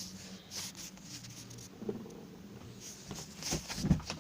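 Soft handling noises: scattered light clicks and rustles, with a louder cluster of them near the end.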